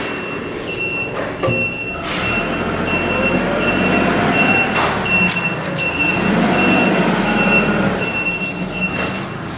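A high electronic beep repeating steadily, about three beeps every two seconds, over the scraping and rattling of shredded solid-state-drive particles being tipped and brushed around inside a disintegrator's metal collection bin.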